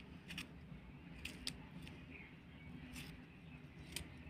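A handful of faint, sharp clicks from a small kitchen knife cutting a tomato held in the hand, with the pieces dropping onto a plastic plate.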